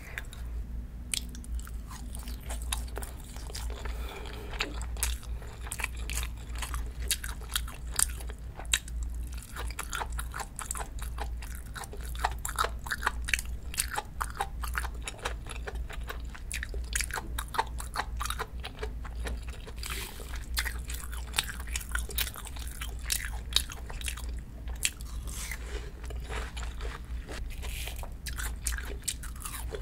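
Close-miked eating sounds: a person chewing and biting food, with many small wet crunches and crackles, over a steady low hum.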